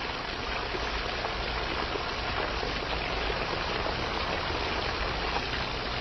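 A steady rush of water spraying out of an egg-shaped nozzle on the end of a garden hose.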